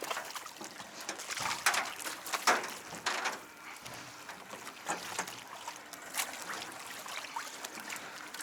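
Irregular splashes, knocks and clatter of fishing gear on a kayak as a caught fish is netted beside it, over faint lapping water. The loudest knocks come about one and a half, two and a half and three seconds in.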